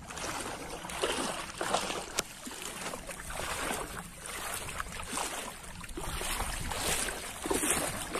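Legs wading through knee-deep standing floodwater, with the water sloshing and splashing in a surge roughly every second as each stride pushes through.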